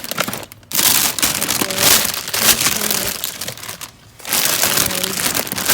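Plastic shopping bag crinkling and rustling loudly as groceries are pulled out of it, in two long spells with a short pause just before the end.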